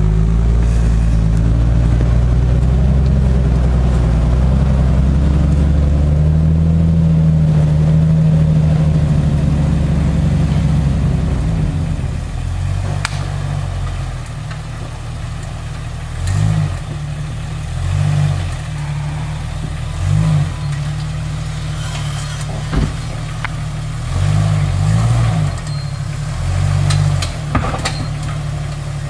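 Jeep Wrangler TJ engine working hard and revving for about the first twelve seconds, then settling lower with short bursts of throttle every couple of seconds. A couple of sharp knocks come in between.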